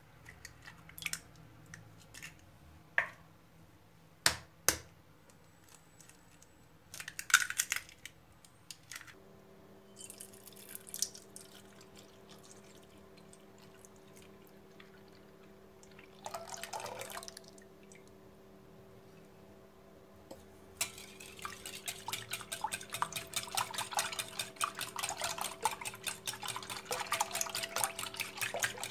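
Batter being made in a glass bowl: a few sharp taps and short pours of liquid as the ingredients go in. Then, from about two-thirds of the way through, a wire whisk beats the batter against the glass in a fast, steady clatter.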